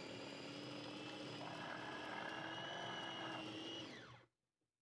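Electric mini food chopper's motor running steadily, its blade chopping almonds and dried fruit. About four seconds in, it winds down in pitch and stops.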